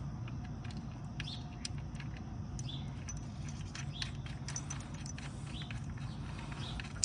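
Small birds chirping in short, irregular bursts over a steady low hum.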